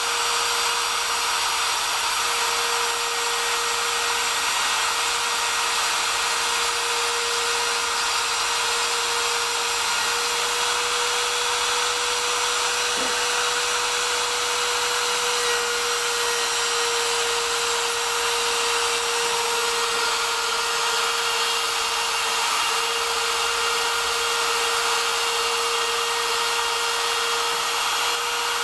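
Homemade CNC router's spindle motor running at a steady high whine, with a wide hiss, as the bit cuts letters into wood.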